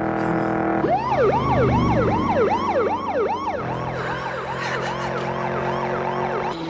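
Police car siren on a fast yelp: short rising wails repeating about three times a second, starting about a second in and speeding up in the second half. A steady drone is heard before it starts.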